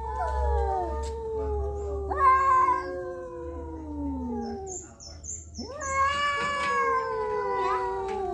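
Two rival tomcats yowling at each other in a face-off: long, drawn-out, overlapping caterwauls that slide slowly down in pitch. There is a short break about five seconds in, then a fresh yowl swells up. These are threat yowls between males contesting a female.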